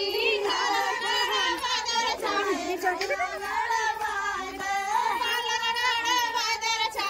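Several high voices singing a song together, with wavering held notes.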